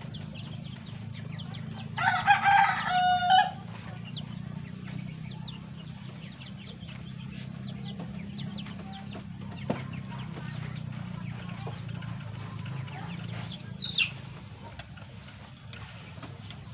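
A rooster crows once, about two seconds in, a loud call of about a second and a half over a steady low background hum. A short, high chirp comes near the end.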